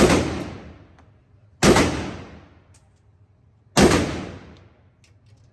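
Three single gunshots from an AK-pattern pistol in 7.62×39, slow aimed fire, each shot's report ringing out in a long echo.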